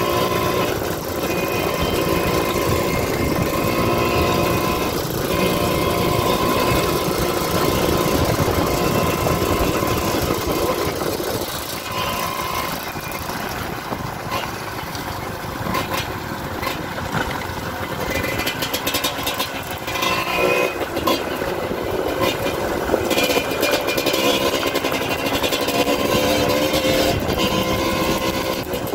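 Dirt bike engine running as the bike is ridden, with steady wind and road noise. From about halfway, short knocks and rattles come through.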